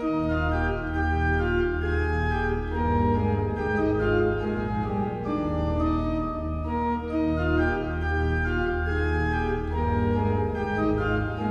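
Organ music playing slow, held chords over sustained low bass notes, the chords changing every second or so.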